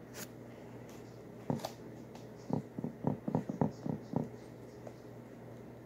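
A plastic spatula scraping whipped topping out of a plastic tub: a click, a single scrape about a second and a half in, then a quick run of about eight short squeaky scrapes in under two seconds.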